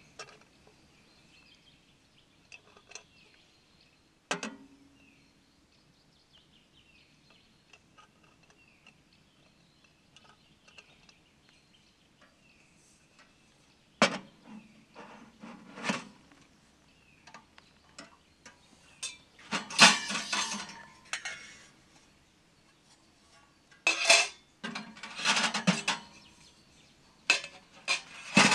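Stainless steel stovepipe sections of a Winnerwell wood stove clinking and scraping against each other and the stove body as they are handled and fitted together. The metal clatters come in scattered bursts with long quiet gaps, busiest and loudest in the last third.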